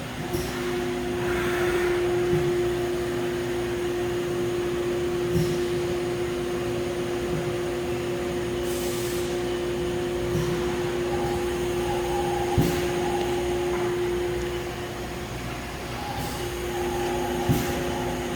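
Haas UMC-750SS 5-axis CNC machining center running after a tool change: a steady whine over a hiss of machine noise, with a few sharp clicks. The whine fades for about a second and a half near the end, then returns.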